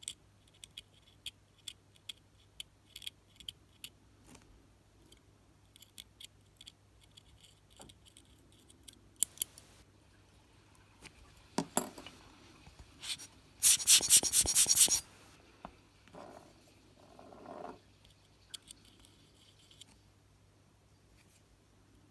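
Steel dental pick scratching and picking hard gunk off the circuit board of a vintage Casio 51QR-19 digital watch: a string of small scrapes and light clicks. About two-thirds of the way through comes a louder burst of rapid clicking and scratching lasting about a second, followed by a softer scrape.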